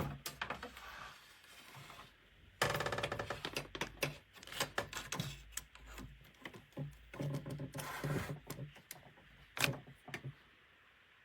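Irregular clicking and clattering of cable plugs and a docking station being handled, with denser bursts of rattling twice and a sharp knock near the end.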